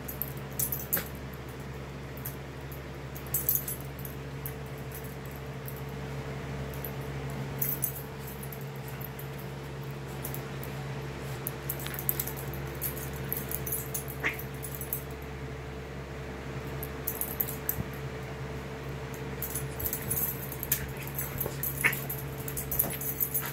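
Miniature pinscher and cat play-fighting: irregular scuffling and rustling with quick clicks throughout, and a brief dog whimper about two-thirds of the way through and again near the end, over a steady low hum.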